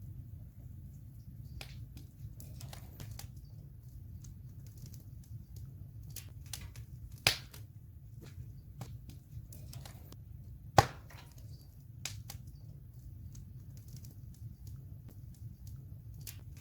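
Wood campfire burning: a steady low rumble with scattered crackles and two loud pops, about seven and about eleven seconds in.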